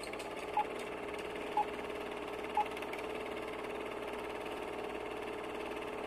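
Three short beeps about a second apart, over a faint steady hum.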